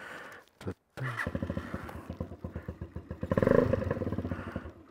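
Cafe racer motorcycle engine starting about a second in after a click, then idling with a steady, even beat. It rises briefly with a blip of the throttle about halfway through.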